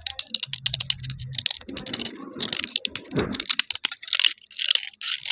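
Broken slate pencil pieces crunching and clicking as they are handled dry, in quick irregular bursts of sharp, gritty crackles.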